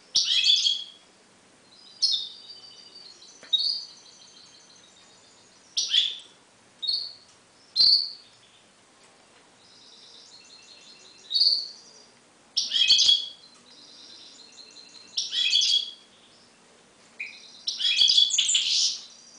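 Caged goldfinch hybrid singing: loud, high-pitched bursts of chirps and twitters every second or two, with softer warbled phrases between them.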